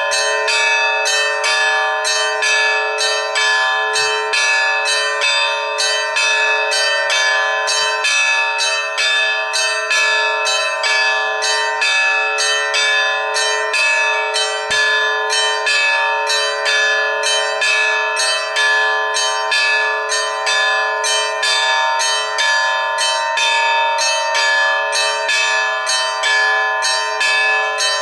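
Russian Orthodox church bells rung in a continuous festive peal (kolokolny zvon): small bells struck rapidly, about three strikes a second, over the steady hum of bells still ringing on.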